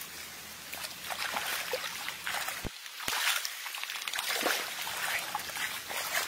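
Irregular splashing and rustling of shallow water and wet grass as a frog is grabbed by hand.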